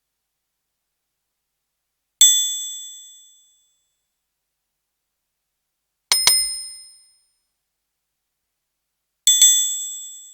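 Orchestral triangle struck three times, about four seconds apart, each high metallic ring fading away within about a second. The second and third hits are quick double strikes.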